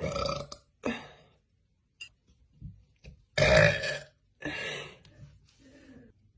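A young woman burping loudly several times: about five separate burps, two in the first second and the loudest about three and a half seconds in, followed by two more, the last one weaker.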